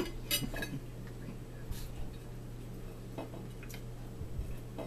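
A metal fork clinking and scraping on a plate in a few scattered, sharp clicks, over a steady low hum.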